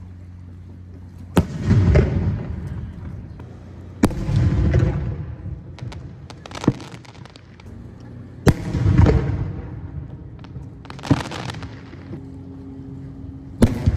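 Aerial firework shells bursting: six sharp cracks at intervals of two to two and a half seconds, four of them each followed by a deep, rolling boom that dies away over about a second.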